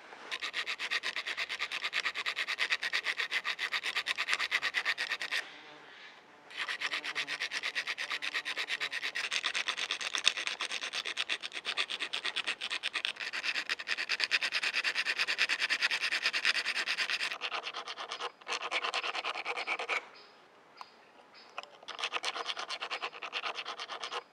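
A small needle file worked back and forth over a thin metal plate braced on a log, in long runs of quick short strokes, stopping twice briefly.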